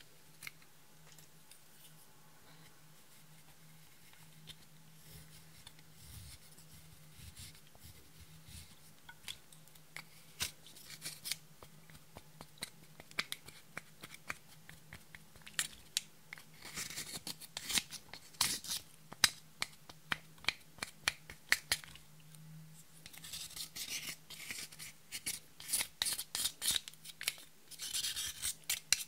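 Baked highlighter powder being scraped and crushed in its plastic compact with a plastic spatula tool: scratchy crunching and small clicks, sparse at first and coming in dense runs in the second half, over a faint steady low hum.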